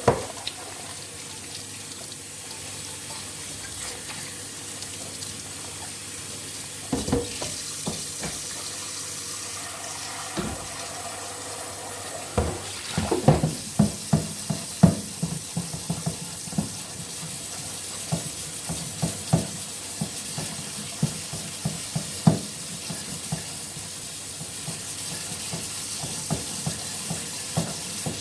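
Tap water running into a kitchen sink while dishes are washed by hand. Dishes and utensils knock and clatter in sharp bursts through the middle stretch.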